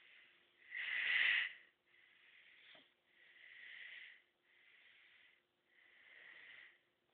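Heavy breathing close to the microphone: about five hissy breaths, each lasting about a second, the loudest about a second in, over a faint steady hum.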